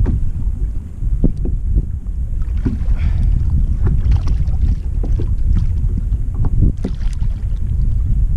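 Wind buffeting the microphone and water slapping against a kayak, with splashes as a hooked fish thrashes at the surface beside it.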